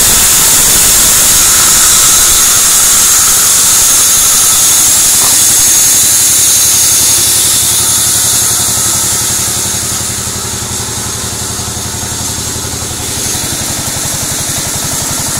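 Sawmill band saw cutting a white teak (gmelina) plank: a loud, steady hiss of the blade through the wood over the machine's running drive. About eight seconds in the cutting noise falls away and the machine's steady hum carries on.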